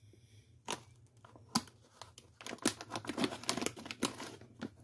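Foil-lined paydirt bag crinkling as it is handled, with scattered light clicks and rustles that get busier about halfway through.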